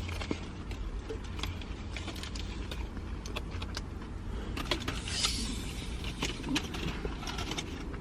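Steady low hum inside a parked car, with scattered small clicks and rustles from handling food and wrappers while eating.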